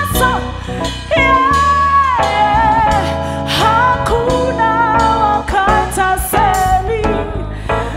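Live gospel praise song: a woman's lead voice singing long held notes with vibrato, backed by female backing singers and a band with drums.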